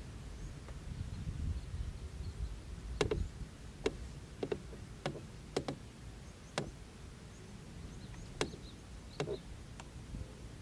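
About nine short, sharp clicks and knocks at irregular intervals, starting about three seconds in, over a low rumble.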